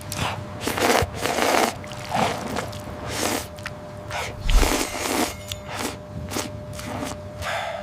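Ramen noodles and broth being slurped loudly, in a run of short noisy slurps and sucks one after another.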